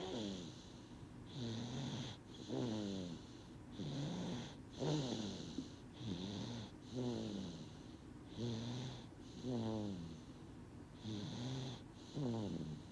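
Baby snoring in deep sleep, a breath about every two and a half seconds. Each breath is a soft hiss followed by a snore that falls in pitch.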